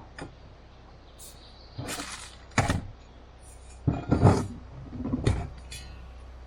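A handful of irregular knocks and clattering handling noises, a few separate hits over a few seconds, with a faint steady low hum underneath.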